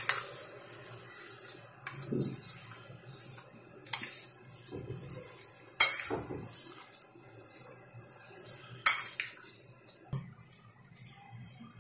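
Steel spoon stirring and mashing a soft potato filling in a ceramic bowl, scraping the sides with several sharp clinks of spoon against bowl, the loudest near the start and about six and nine seconds in.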